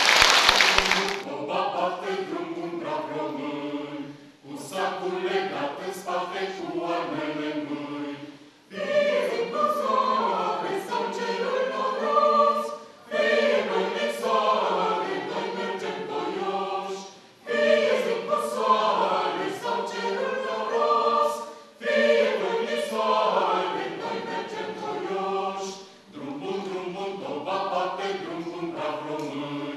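The last of a round of applause in the first second, then a mixed choir of men's and women's voices singing, unaccompanied, in phrases of about four seconds with short breaks between them.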